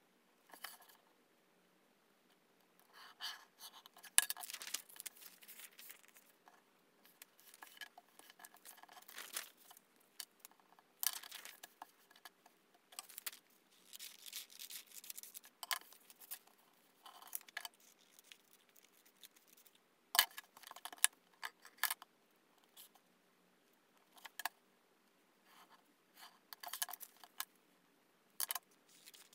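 Scissors snipping through a sheet of paper in a run of short, sharp cuts, with paper rustling as it is handled.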